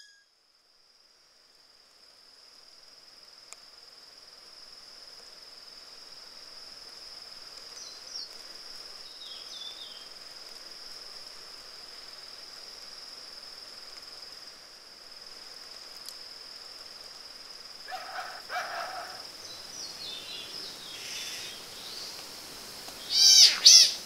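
Rainforest ambience fading in over the first few seconds: a steady high-pitched insect whine, with birds calling now and then over it. Near the end comes the loudest sound, a bird call of quick descending notes.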